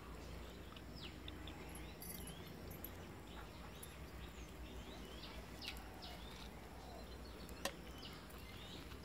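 Faint outdoor ambience with small birds chirping now and then over a low steady rumble, and a single sharp click near the end.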